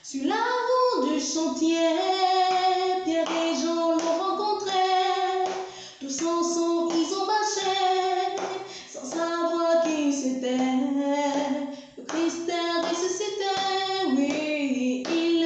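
A woman singing an Easter hymn melody in phrases of about three seconds, with short breaths between phrases.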